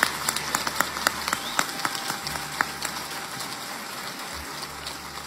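Audience applauding, the dense clapping thinning out and fading away over the few seconds.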